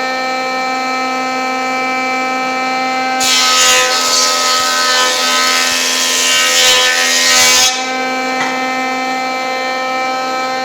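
Electric wood planer running with a steady whine that starts abruptly. About three seconds in, a 2x4 feeds through and the cutterhead shaves it for about four and a half seconds, adding a loud rough hiss, before the planer runs on unloaded.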